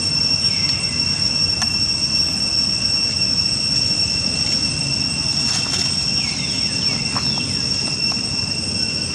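A steady, high-pitched insect drone with one unchanging tone, over a low rumble. A few short falling squeaks come about six to seven seconds in.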